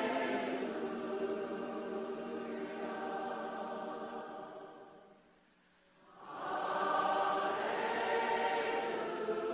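Slow worship music of sustained choir voices holding chords. It fades almost to silence about five seconds in, then swells back up.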